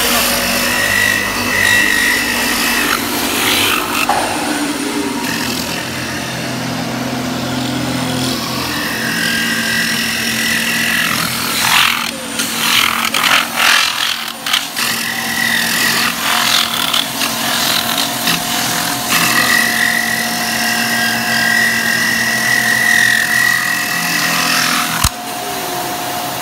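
CNC metal spinning machine forming a steel blank, the forming roller pressing on the spinning steel: a steady rasping, grinding noise with a high whine that comes and goes. A cluster of sharp knocks about halfway through, and the sound drops suddenly near the end.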